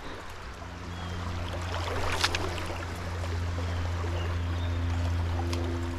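River water running over a shallow riffle, with a steady low hum underneath and a single sharp click about two seconds in.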